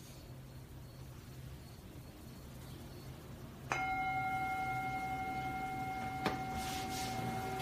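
A meditation bell struck once, then ringing on with a steady, sustained tone; this is the second bell, signalling the end of the meditation. A brief click sounds about two and a half seconds after the strike.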